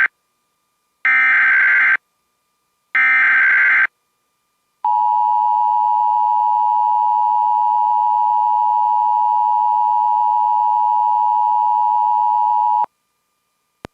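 Emergency Alert System opening signals: the tail of one digital header tone and two more, each about a second long with silent gaps between, then a loud steady attention tone lasting about eight seconds that stops abruptly.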